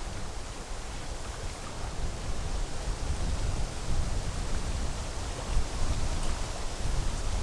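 Wind blowing on the microphone, uneven low rumbling gusts over a steady hiss.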